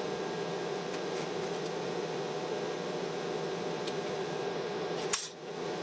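Steady mechanical hum. A sharp click about five seconds in is followed by a brief drop in level.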